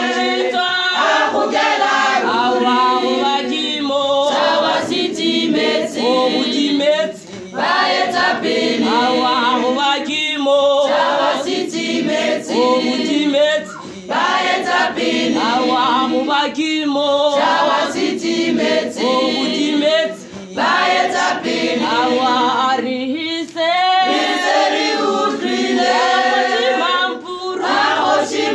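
Female church choir singing a cappella in several voice parts, phrase after phrase with short breaks between.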